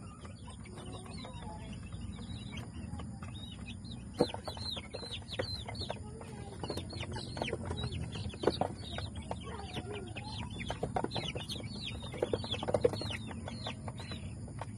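Gamefowl chicks peeping, many short falling chirps that grow busy from about four seconds in, with a few sharp knocks, over a steady low hum.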